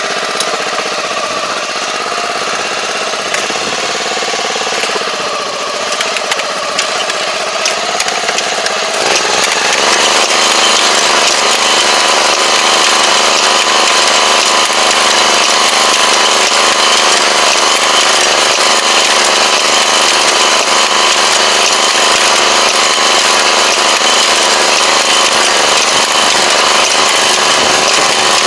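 Engine of a tobacco transplanting machine running; about nine seconds in it speeds up and grows louder, then runs steadily under way.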